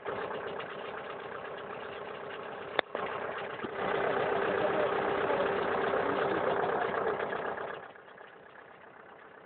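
Tractor engine running as the machine tows a landscape rake over soil, with one sharp click a little under three seconds in. The sound grows louder at about four seconds in and drops off sharply near the end.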